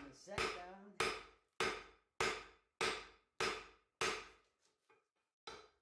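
Three-pound cross-peen hammer forging a red-hot steel bar on a 170-pound anvil: a steady run of about seven blows, roughly one every 0.6 seconds, each ringing briefly, stopping about four seconds in.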